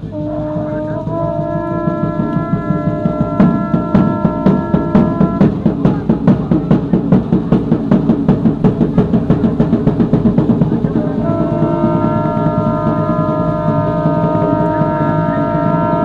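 A conch shell trumpet blown in a long steady note that rises slightly as it starts. Fast drumming, about five beats a second, takes over for several seconds, and a second long conch blast comes near the end.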